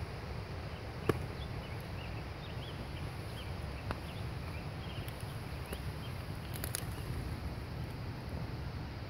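Steady low wind rumble on the microphone, with faint high chirping calls through the middle and a few small clicks, the sharpest about a second in.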